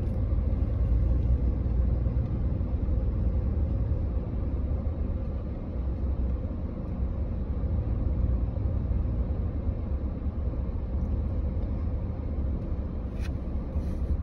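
Steady low rumble of a car rolling slowly on a dirt road, engine and tyre noise heard from inside the cabin.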